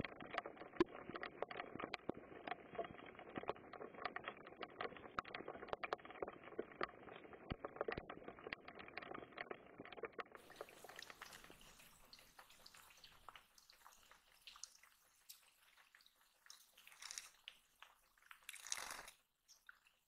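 Rain falling steadily, many drops pattering close by over a soft hiss. About halfway through the patter fades out, leaving a fainter hiss with a few brief noises near the end.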